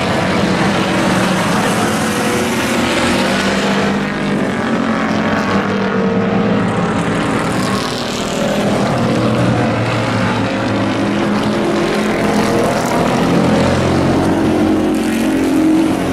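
Engines of several racing pickup trucks running as they lap the oval, their pitch rising and falling.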